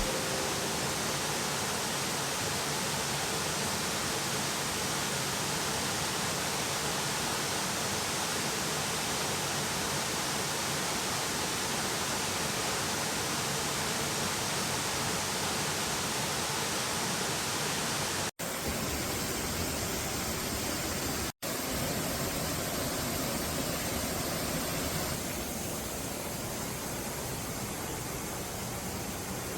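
Steady rush of falling water from a waterfall on Butte Creek, an even hiss. It cuts out for an instant twice, about 18 and 21 seconds in, and is a little softer after about 25 seconds.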